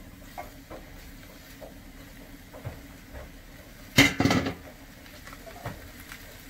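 Soft knocks as the last pieces of boiled tripe drop from a metal bowl into a frying pan, then a short clatter of metal cookware about four seconds in.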